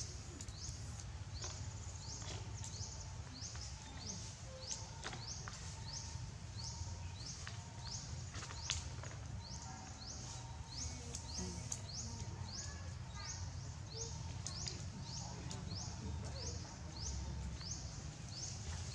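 A high chirping call repeated steadily, about one and a half times a second, each chirp sliding down in pitch, over a low steady outdoor rumble with a few faint clicks.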